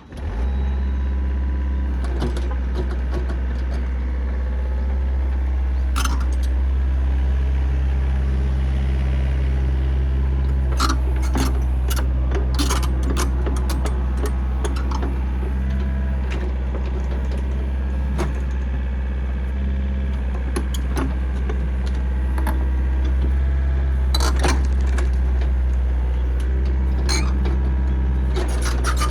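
Backhoe engine running with a deep, steady drone that sets in abruptly at the start, overlaid by scattered sharp metallic clanks and knocks.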